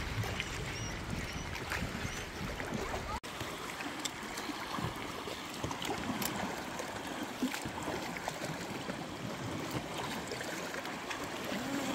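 Small waves lapping and trickling around a kayak and a shallow rock ledge. Wind rumbles on the microphone for the first three seconds and stops abruptly. After that come light splashes and drips of water.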